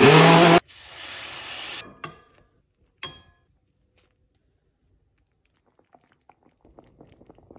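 A Ninja Professional 1500-watt countertop blender gives one short pulse, its motor whirring through a tomato mixture before cutting off. About a second of steady hiss follows, then two light clicks, and faint scattered crackles near the end.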